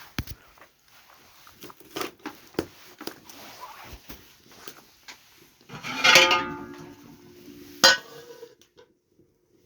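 Scattered knocks and clinks of hard objects being handled, with a loud clatter about six seconds in that rings on briefly, and a sharp knock just before eight seconds.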